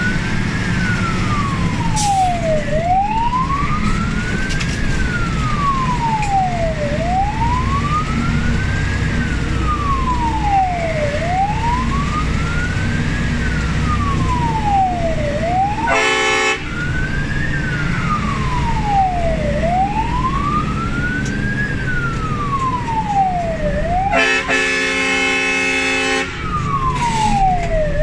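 Fire engine's wailing siren, heard from inside the cab, rising and falling slowly about every four seconds over the steady running of the truck's engine and road noise. A short horn blast comes about halfway through and a longer two-second one near the end.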